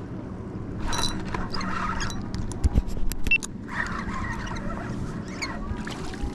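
Spinning reel being cranked in two short spells to bring in line, with a cluster of sharp clicks and taps in between, over a steady background of wind and water.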